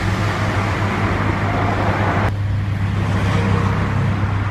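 Road traffic noise with a steady low engine hum; the rushing part of the noise cuts off abruptly about two seconds in while the hum carries on.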